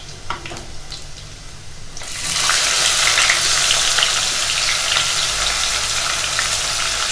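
Chopped onions hitting hot oil and ghee in a pressure cooker: a quieter low sizzle with a few small clicks, then about two seconds in a sudden loud, steady sizzle as the onions go in and fry.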